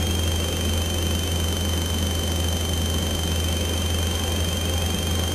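Light aircraft's piston engine and propeller running steadily in cruise, heard from the cockpit, with a thin steady high whine over the low drone.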